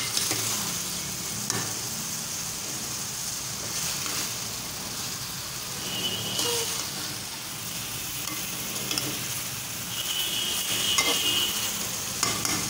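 Minced chicken sizzling in oil in a stainless steel pot as it is bhuna-fried, stirred with a spoon that scrapes and knocks against the pot, with a couple of short squeaky scrapes about halfway and near the end.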